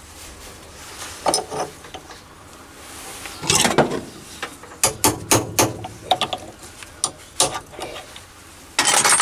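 Scattered metal clicks, knocks and rattles of tips being swapped in an MT2 live centre: the pointed end pulled out and a different end handled, with a louder scrape near the end.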